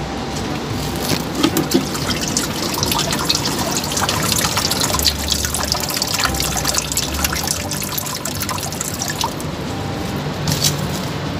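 Rainwater draining from the bottom holes of a lifted terracotta plant pot, trickling and splashing into standing water in a planter box below. The splashing is thickest in the middle and thins out near the end.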